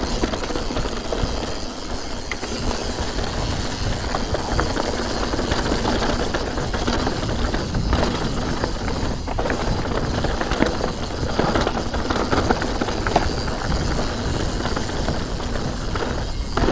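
Santa Cruz Nomad 4 mountain bike rolling down a dirt singletrack: steady tyre noise on the dirt, with the bike rattling and clicking over the bumps.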